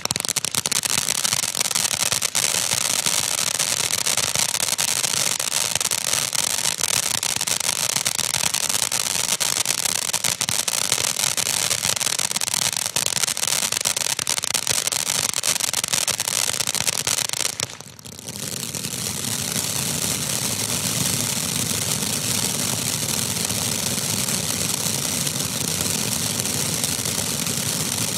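Black Cat 'Big Cat' ground fountain firework spraying sparks, a steady hissing rush thick with rapid crackling. About 18 seconds in it briefly dies down, then picks up again with a fuller, deeper rush as the next stage burns.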